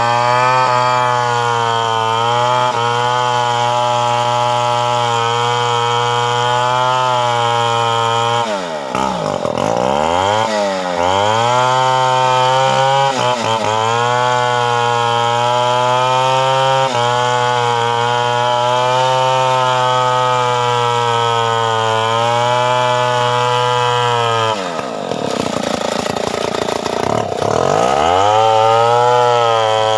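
Stihl 070 large two-stroke chainsaw running at steady high revs while cutting teak. Twice the engine note drops sharply and climbs back as the throttle is eased and opened again, about a third of the way in and again near the end.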